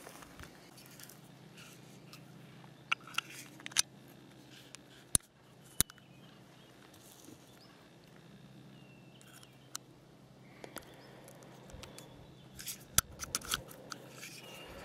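Small metallic clicks and ticks from handling the stainless steel parts of a North American Arms .22LR mini revolver, as the loaded cylinder and cylinder pin are fitted back into the frame. The clicks are short and scattered, with a quick cluster near the end as the pin is seated.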